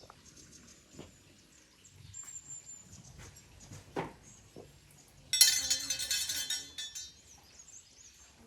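A small metal bell struck once about five seconds in, ringing and fading over about a second and a half, after a few faint knocks.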